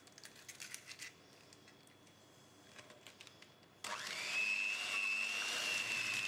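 A few small clicks of eggshell being broken over a steel bowl. About four seconds in, an electric hand mixer starts, its whine rising and settling to a steady pitch as the beaters mix an egg into creamed cream cheese and sugar.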